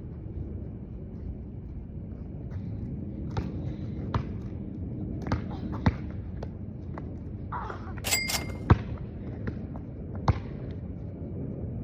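A basketball bouncing now and then on a court: single thuds at irregular gaps of about a second or more, over a steady low background hiss. A brief high ringing squeak or ding sounds about eight seconds in.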